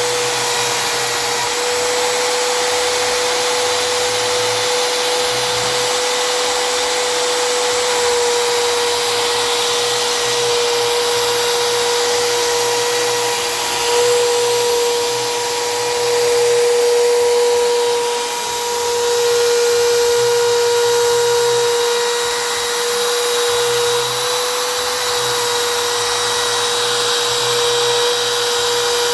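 CNC router spindle running at high speed while routing PVC, a steady high whine over hissy cutting noise that swells and eases a few times as the bit's load changes.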